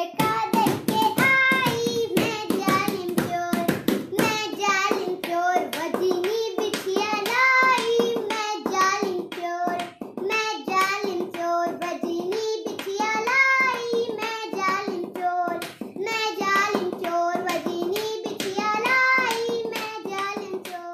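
A young girl singing an Awadhi folk song, with sharp hand claps keeping time several times a second.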